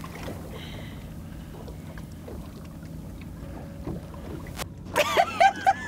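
Steady low wind and water noise around a drifting boat on open water. After an abrupt cut about five seconds in, a loud quick run of short high-pitched cries follows, about five a second.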